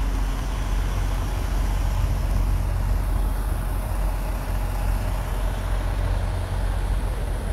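Diesel semi-truck engines running, a steady low rumble.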